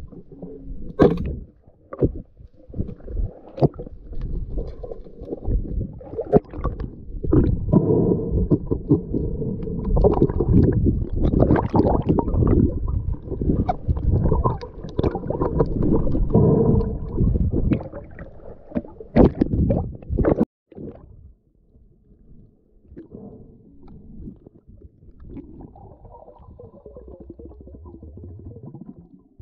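Muffled underwater sound heard through a camera housing: churning water with many sharp knocks and clicks as a diver moves and handles a speargun. About twenty seconds in it cuts off abruptly to a much quieter low rumble.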